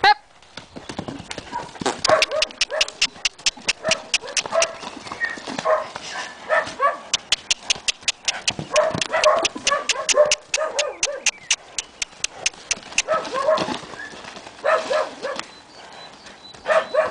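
A horse's hoofbeats in a quick, even rhythm of about four to five strikes a second as it trots and canters loose around a round pen, with short high calls scattered over them.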